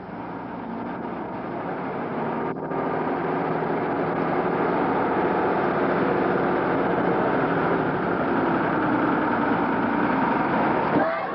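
A city bus's diesel engine running as the bus approaches, growing louder over the first few seconds and then holding steady.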